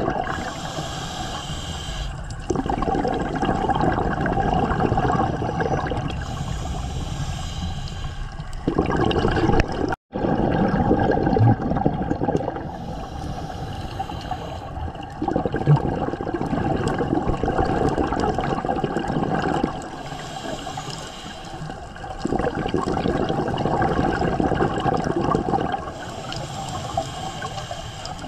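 Scuba diver breathing through a regulator underwater: a hiss on each inhale, then a longer rush of exhaled bubbles, about five breaths in a steady rhythm. The sound cuts out for an instant about ten seconds in.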